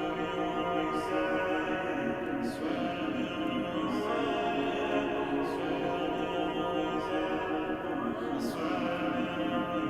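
Background music with a held, layered chord and a sharp hit every second or two; no lyrics are sung yet.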